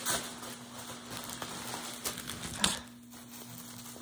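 Packaging crinkling and rustling as a new, unopened set of scrubs is unwrapped, with one sharp click a little over two and a half seconds in, then quieter handling of the fabric.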